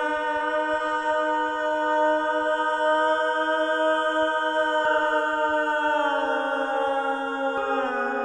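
Music: a slow, drone-like held chord of long sustained notes, sliding lower in pitch in the last few seconds.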